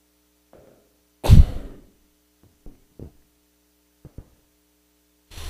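A pause in the recitation, heard through the prayer hall's microphone: a faint steady hum, one loud short noisy sound about a second in, a few soft clicks, and another short noisy sound near the end.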